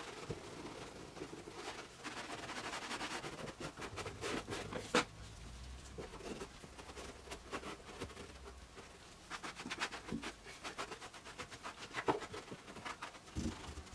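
Hand cleaning inside a car's wheel arch: irregular scratchy rubbing and small clicks against the arch liner and suspension parts, with a sharper knock about five seconds in.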